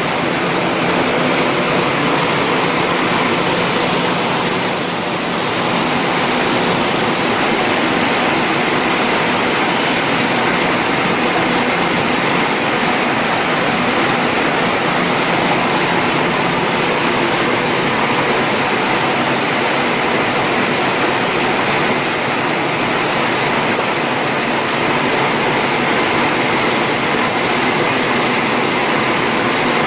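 EMS-UT70 automatic express mail envelope forming machine running and turning out envelopes: a loud, steady mechanical noise with a faint hum of steady tones underneath.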